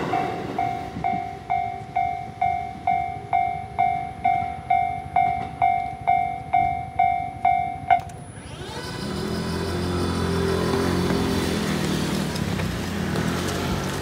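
Japanese level-crossing alarm ringing its electronic 'kan-kan' bell, about two strikes a second, then cutting off sharply once the train has cleared. A low mechanical hum with faint whining tones follows as the crossing barriers lift.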